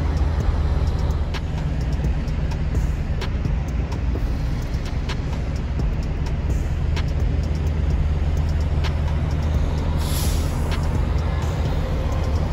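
International LT semi truck's diesel engine running, heard from inside the cab as a steady low drone. A brief hiss of air comes near the end.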